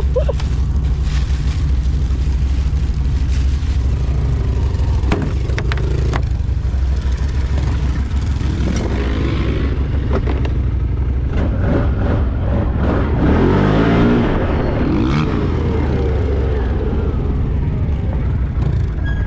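Enduro motorcycle engines running steadily, with a rev that rises and falls about two-thirds of the way through.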